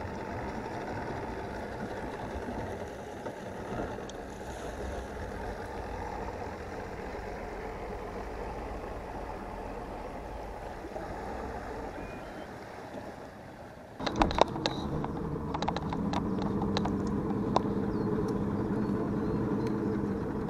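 Bass-boat outboard motors idling slowly through a harbor, a steady low rumble with water around the hull. About 14 seconds in it switches abruptly to a louder, steadier outboard hum heard from the boat's helm, with a few sharp clicks.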